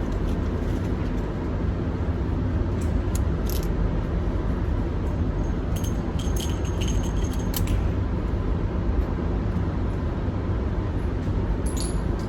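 Steady low rumble with scattered light metallic clicks and jingles, a few about three seconds in, more around the middle, and a cluster near the end.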